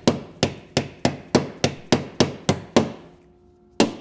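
A hammer striking the sheet metal of an Infiniti's rear body panel in a steady run of sharp blows, about three a second, to flatten small creases. After a pause of about a second, one more blow lands near the end.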